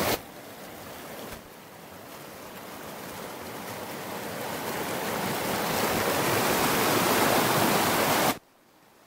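Shallow mountain stream rushing over rocks, a steady whitewater noise that grows louder over several seconds, then cuts off abruptly near the end.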